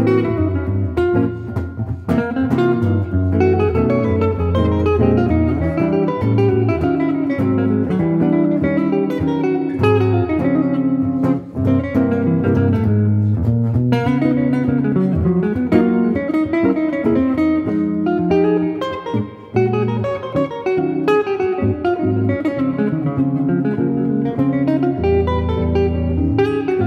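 Duo guitar playing on a red semi-hollow electric guitar and a blonde f-hole archtop guitar, with many plucked notes and chords overlapping, dipping briefly about two-thirds of the way through.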